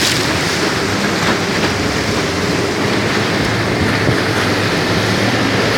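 Motorboat under way: a steady low engine hum under an even rush of water and wind on the microphone.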